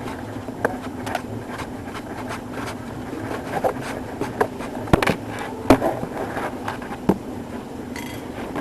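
Scattered small clicks and taps of a screwdriver and plastic pistol parts being handled as screws are taken out of an electric airsoft pistol, the sharpest about five seconds in, over a steady low background hum.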